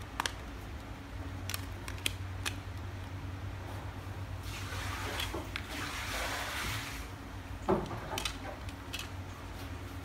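Small plastic clicks and handling noises as a Nokia phone's back cover is pried off and its battery pulled out, with a louder knock about three-quarters of the way in. A steady low hum lies underneath.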